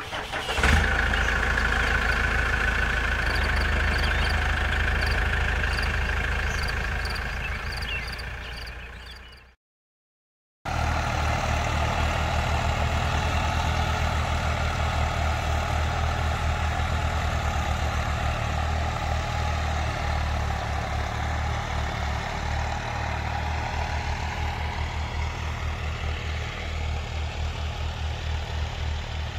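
Al-Ghazi diesel tractor engine running steadily as it works the field, a low, pulsing rumble. Before it comes an intro sound with a steady high tone, which fades out into about a second of silence.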